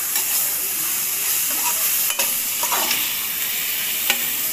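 Drumstick pieces, onion and tomato sizzling in hot oil in a pan as they are stirred, with a few scrapes of the stirring utensil against the pan.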